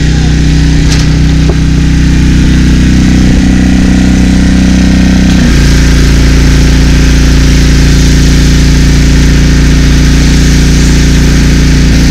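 Gas-powered pressure washer engine running loud and steady while the house is washed for painting. Its note drops a little about five and a half seconds in.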